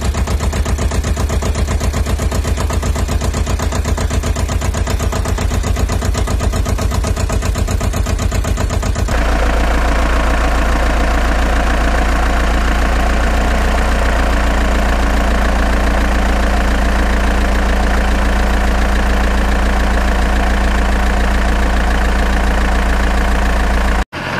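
Engine idling with a fast, even chugging. About nine seconds in it switches abruptly to a deeper, smoother engine sound, which cuts off suddenly near the end.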